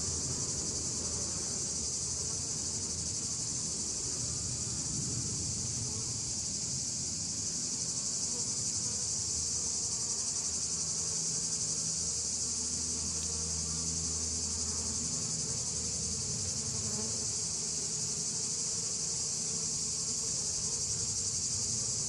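A steady, high-pitched insect chorus fills the air, with the low hum of honeybees crowding an open hive frame beneath it.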